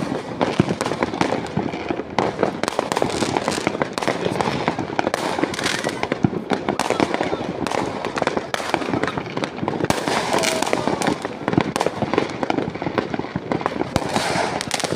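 Many fireworks bursting at once, a dense, continuous crackle of rapid overlapping bangs and pops with no pause.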